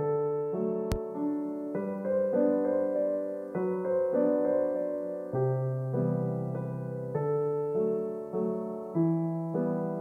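Background piano music: a slow, gentle piano piece with notes and chords changing every half second or so. A single short click about a second in.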